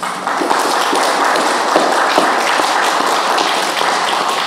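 Audience applauding: many hands clapping at once, starting suddenly and easing off near the end.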